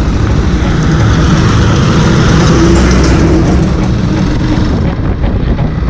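Hero Xpulse 200's single-cylinder engine running while the motorcycle is ridden, under heavy wind rumble on the microphone. The engine note grows louder about two seconds in and eases off after about four seconds.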